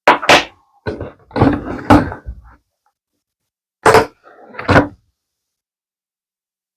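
Hard resin magnets knocking and clacking as they are picked up and set down on a hard surface, in three short bursts of handling noise: one at the start, a longer one about a second in, and another about four seconds in.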